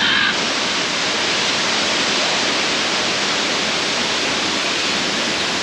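Steady, loud rush of a waterfall.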